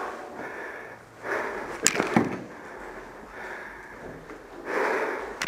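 A few sharp clicks and knocks about two seconds in, set in a stretch of rustling noise; more rustling and a single click come near the end.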